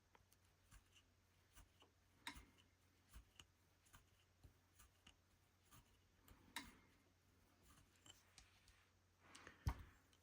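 Faint, irregular clicks and soft scratching of a rug hook pulling wool strips up through the backing fabric, with a louder brief rasp near the end.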